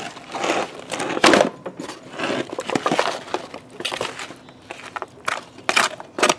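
A wooden spoon scraping a wet sauerkraut, onion and fruit mixture out of a foil pan into a cast iron Dutch oven. Irregular scrapes and foil crinkles, with a few sharper knocks.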